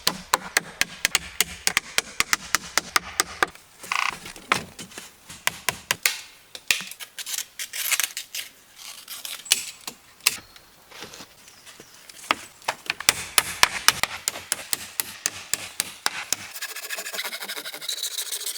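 Wood being chopped and struck with a hand tool: many sharp, irregular knocks, several a second. Near the end this turns into a steady scraping on the wood.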